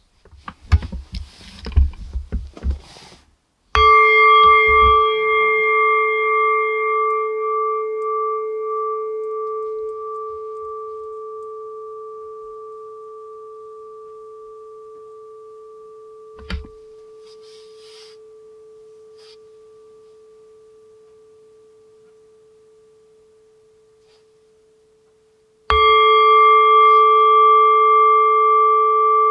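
A singing bowl struck twice, about twenty-two seconds apart. Each strike rings with a low, steady tone and several higher overtones, and the first one fades slowly almost to nothing before the second. A few seconds of knocking and handling noise come before the first strike.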